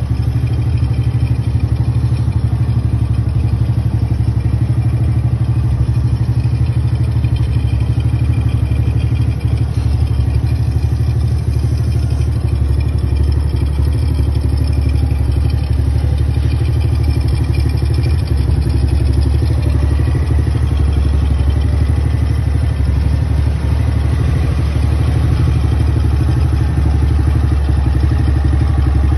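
Honda C70 fitted with a Honda Grand single-cylinder four-stroke engine, idling steadily without revving.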